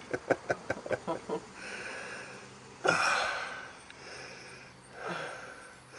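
A quick run of light clicks and taps as a bolt is fiddled into its hole on the brake backing plate. Then a person breathes hard with the effort: a loud, sharp exhale about three seconds in and a fainter one near the end.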